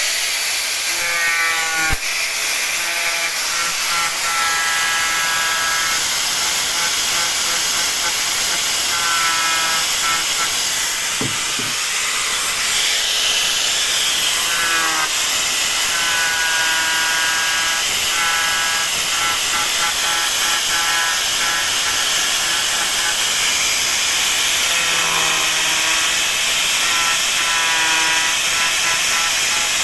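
Angle grinder cutting open a washing machine's sealed plastic tub to get at the drum bearings: a loud, steady cutting hiss over a motor whine whose pitch dips and rises as the disc bites and eases off.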